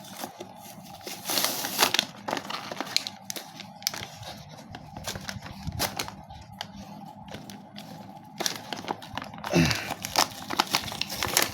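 Spinning-top toy packaging being torn open and handled: irregular crinkling, rustling and tearing, with bursts around two seconds in and again near the end.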